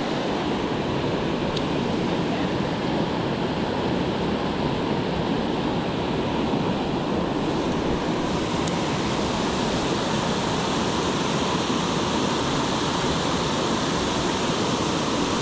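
Steady rush of flowing creek water, loud and unbroken.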